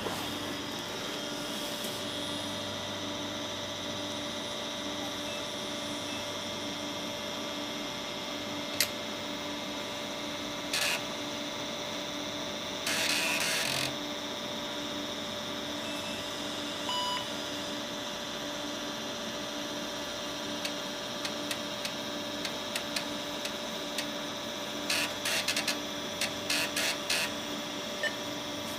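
IBM PS/2 Model 50 starting up and booting from its 3.5-inch floppy drive: a steady fan and power-supply hum, with the floppy drive's head clicks and short grinding bursts as it seeks and reads the disk, and a short beep about 17 seconds in. The drive reads the disk and the machine boots normally.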